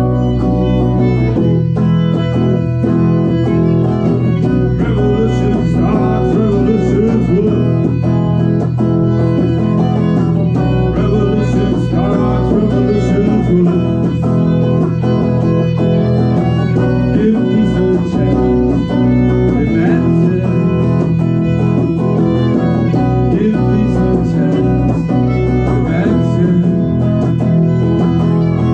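Live band playing an instrumental passage: bowed violin over strummed electric guitar and bass guitar, with no singing.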